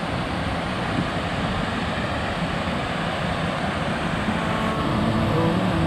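Steady rush of falling water at a waterfall, a continuous even roar close to the microphone.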